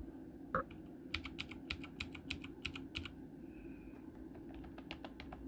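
Clicky Gateron Blue key switches on an RK61 mechanical keyboard being typed as a sound test. A quick run of keystrokes lasts about two seconds, there is a short pause, and a few more keystrokes come near the end.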